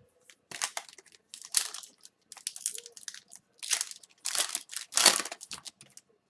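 Crinkling and crumpling of a plastic trading-card pack wrapper being handled, in a string of rustling bursts, loudest near the middle and end.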